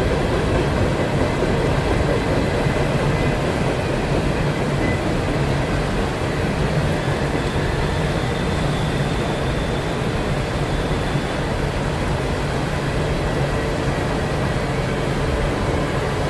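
A train rolling past: a steady low rumble with a constant hum, easing slightly toward the end.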